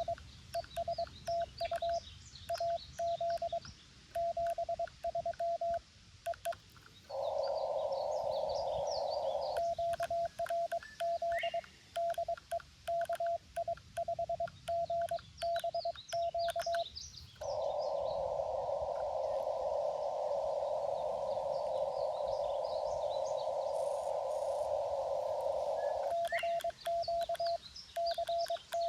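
Morse code sidetone from a Xiegu G90 transceiver: a steady single-pitched beep keyed on and off in rapid dots and dashes. It stops twice, for a few seconds and then for about eight seconds, and during each gap band hiss comes through the receiver's narrow CW filter while the operator listens for replies.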